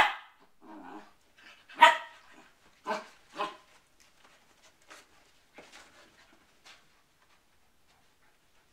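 Poodles barking in rough play: a sharp bark at the very start, more barks about two, three and three and a half seconds in, then fainter scattered ones that die away about seven seconds in.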